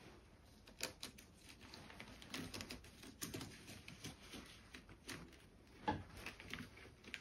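Faint, scattered clicks and light knocks of hands handling cables and the plastic flaps of a laser engraver's cable channel.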